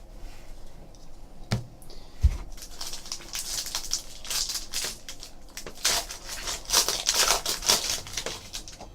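Trading card pack wrapping being torn open and crinkled while the cards are handled, after two knocks on the table in the first couple of seconds.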